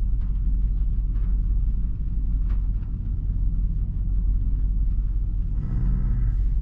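2008 Nissan Titan's 5.6-litre V8 idling with a steady low rumble. The engine has multiple misfires, which the scan tool shows on cylinders 2, 3, 6 and 8.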